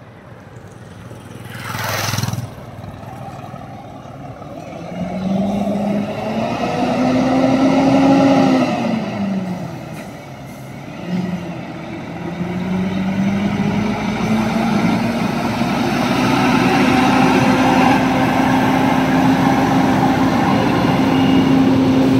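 Diesel engine of a heavy-haul tractor truck pulling a multi-axle hydraulic trailer: a steady drone that grows louder as it approaches and draws alongside near the end. Earlier, about eight seconds in, a lighter escort vehicle passes with its engine pitch falling, and there is a short burst of noise about two seconds in.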